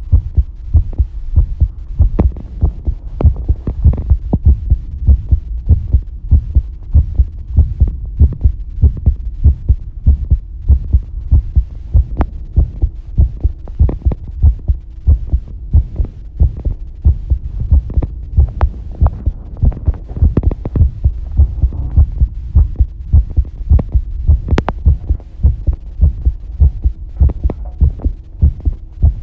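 Human heartbeat recorded close up: a regular, unbroken run of low, dull thumps, with a faint steady hum beneath and an occasional small click.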